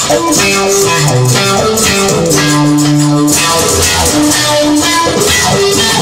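Rock music led by electric guitar, with bass and drums keeping a steady beat.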